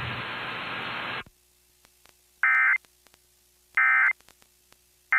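Emergency Alert System end-of-message data bursts: two short, buzzy two-tone digital chirps about a second and a half apart, with a third starting at the very end, signalling the close of the alert. Before them, a steady radio hiss cuts off about a second in.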